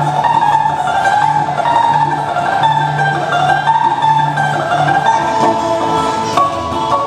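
Live Russian folk music from a balalaika trio: plucked strings play a wavering melody over a bass line of repeated low notes.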